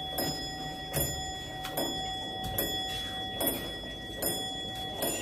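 Suspense background music: a clock-like ticking beat, a little faster than one tick a second, over faint held tones.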